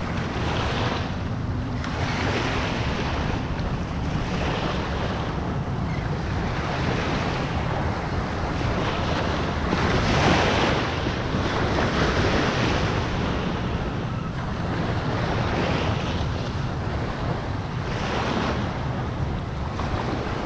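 Small surf waves washing up and breaking on the sandy shore, the wash swelling and falling back every two to three seconds, over a steady low rumble of wind on the microphone.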